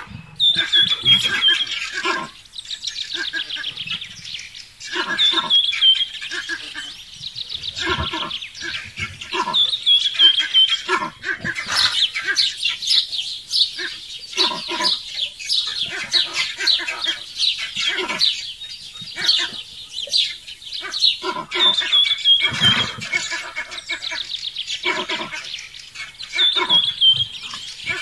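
A bird calling with a high, falling trill that repeats every few seconds, among many short, irregular clicks and knocks.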